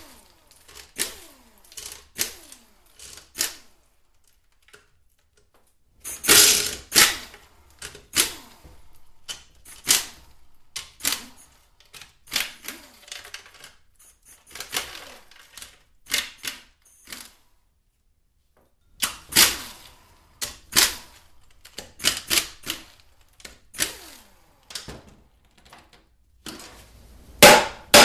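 Pneumatic air ratchet running in short bursts as it spins out a transmission oil pan's 13 mm bolts one after another, with short pauses between them. Near the end come a few loud knocks from a mallet striking the steel pan to break it loose.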